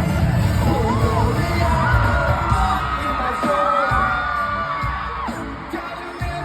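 Fireworks banging several times over loud pop music with singing, the bangs coming mostly in the second half.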